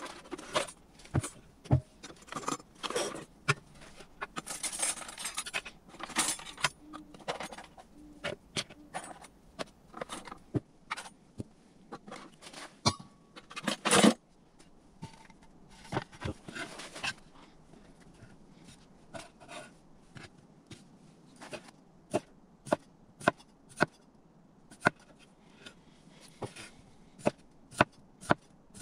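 Camp-cooking handling sounds: utensils and cookware clinking and scraping with scattered knocks, one louder knock about halfway. In the last third, a knife chopping on a cutting board in regular strokes, about two a second.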